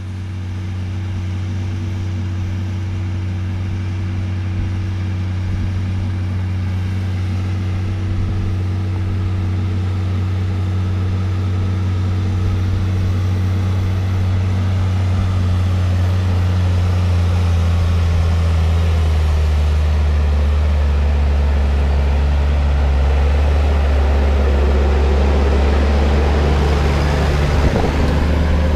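Case Puma 165 tractor's diesel engine running steadily with a deep drone that grows gradually louder. Its pitch shifts slightly about two-thirds of the way through, and a rushing noise builds toward the end.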